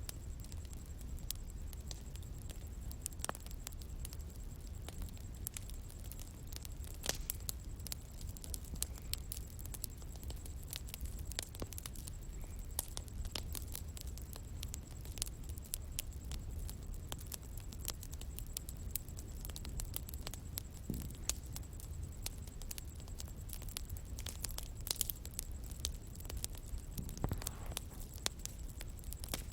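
Bonfire crackling, with many small irregular pops and snaps over a low steady rumble of the burning fire.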